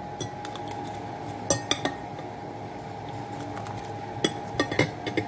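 Metal fork clinking and scraping against a plate of rice while eating: a few sharp clinks about one and a half seconds in and another cluster near the end. A steady hum runs underneath.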